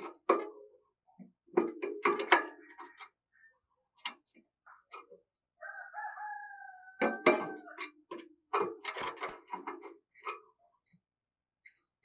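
A spotted dove in a wire cage knocking and pecking at its feeder and perch, making a run of irregular sharp clicks and taps. About six seconds in, a drawn-out call of about a second and a half from another bird sounds over it, falling slightly at the end.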